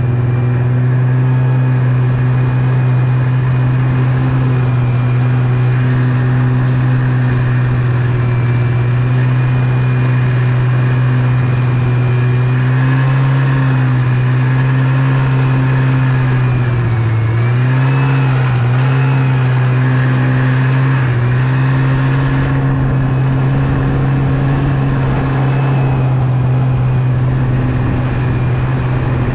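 Yamaha Venture snowmobile engine running steadily under way, its pitch dipping briefly a few times a little past halfway as the throttle eases off and comes back on.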